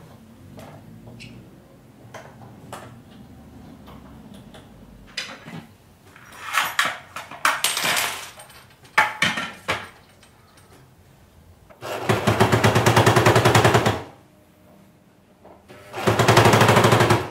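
Electric sewing machine stitching in two fast runs of needle strokes, one about two seconds long and a shorter one near the end; these are the loudest sounds. Before them, scattered clicks and the rattle of a small plastic case being opened and handled.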